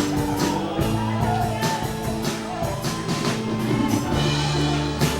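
Live church band playing: held keyboard chords with drum hits and a rock-style backing.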